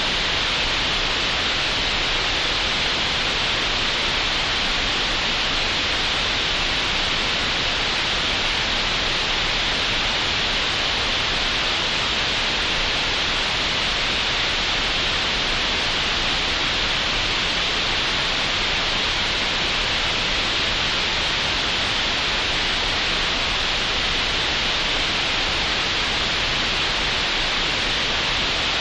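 Digitally generated green noise, made in Audacity: a steady, even hiss that never changes, brightest in the upper middle of the range with nothing above its top edge.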